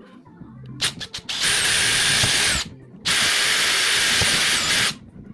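Power drill running in two bursts of one to two seconds, after a few quick trigger blips, drilling holes through a metal mounting bracket.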